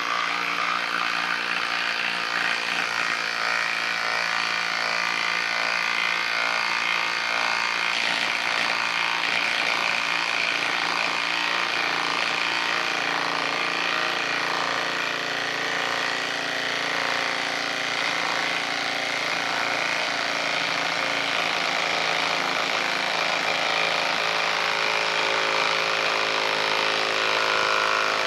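Hilti SID 4-A22 cordless impact driver hammering steadily without a break as it drives a 6-inch by 1/2-inch lag screw, through a socket, into a wooden stump under heavy load.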